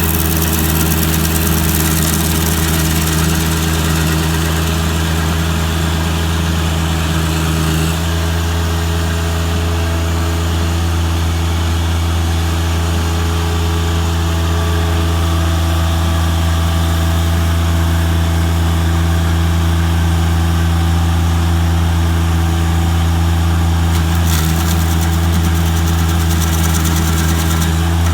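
Engine running steadily at a constant speed, its tone shifting slightly about a third of the way in and again near the end.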